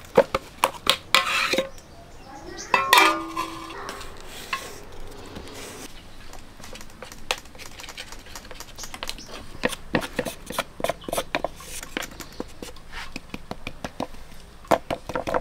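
Steel plates clinking and scraping as the base of one steel plate presses a jaggery-coconut burfi mixture flat in another, with many short metal taps and scrapes; a flat metal spatula scrapes over the plate near the end.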